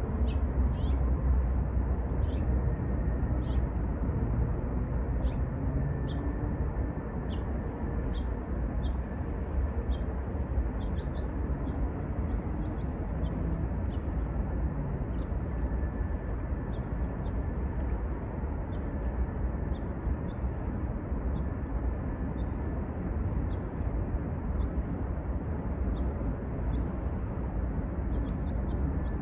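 Small birds chirping, short high calls about once a second and sometimes in quick clusters, over a steady low rumble.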